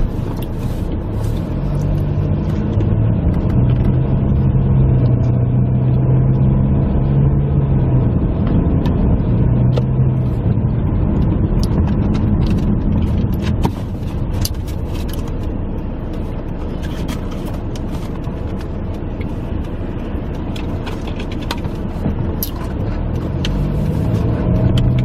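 Car engine and road noise heard from inside the cabin while driving: a steady low rumble and hum that rises in pitch at the start and again near the end, with scattered small clicks.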